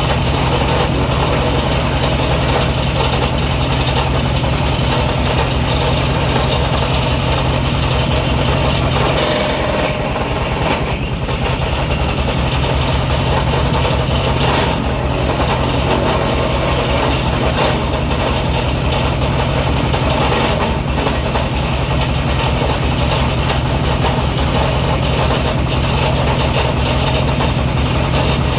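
Hammer-mill wood crusher driven by a single-cylinder diesel engine, running steadily under load as pieces of dried coconut frond are fed in and ground to sawdust. The low engine note wavers briefly about nine seconds in.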